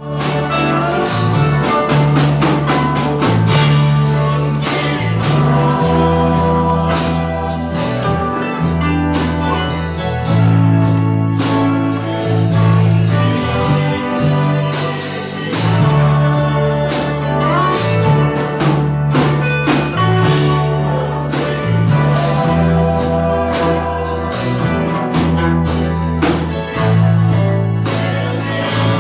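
Music with guitar, a bass line changing note every second or two, and drums, with some singing.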